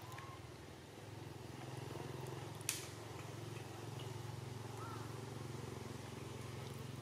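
Steady low hum of a distant motor running, with one sharp click a little under three seconds in.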